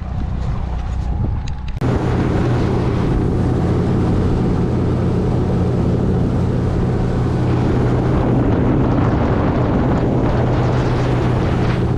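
Boat's outboard motor running at speed, a steady hum under a loud rush of wind on the microphone and water noise; it becomes suddenly louder about two seconds in.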